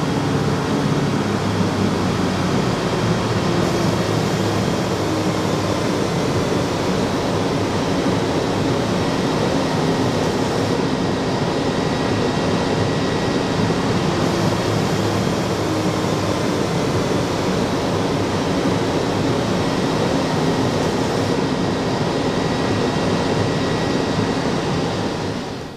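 Twin Pratt & Whitney R-1830 radial engines of a C-47 running steadily, heard from inside the cabin with a slight drift in pitch. The level drops off sharply near the end.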